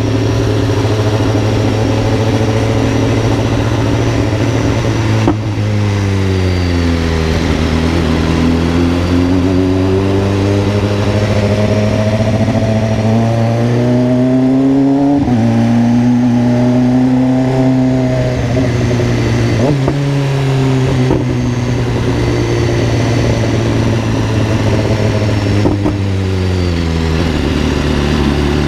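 Car exhaust fitted with a 'granada' muffler, the engine running under throttle with a loud drone whose pitch drops about five seconds in, climbs for several seconds, holds, and falls again near the end as it slows.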